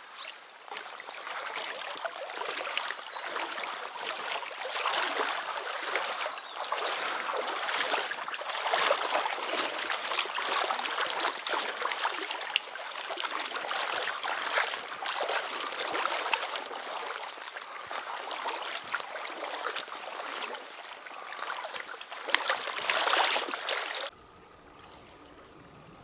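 A shallow, fast stream rushing and splashing around legs wading knee-deep through it, in uneven surges. About two seconds before the end the sound drops abruptly to a faint hush.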